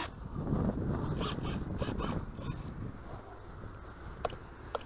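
Footsteps crunching in snow for the first two or three seconds, with wind rumbling on the microphone. After that it goes quieter, and a few sharp clicks come near the end.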